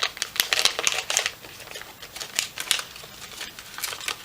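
Handling noise from a drone frame, its parts and the battery lead wires being moved about by hand: irregular light clicks and crinkling rustles, busiest in the first second and again near the end.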